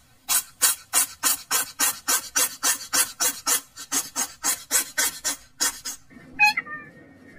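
Kitten grooming itself, a run of rhythmic rasping licks at about three strokes a second that stops about six seconds in. A brief high call follows near the end.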